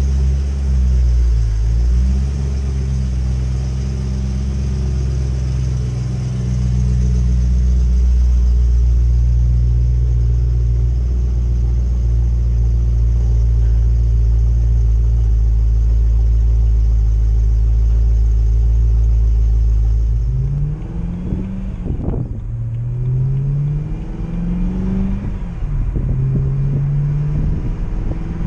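BMW E92 M3's V8 through an Autobahn Exotics aftermarket exhaust, idling steadily for about twenty seconds. Then the revs rise and fall several times.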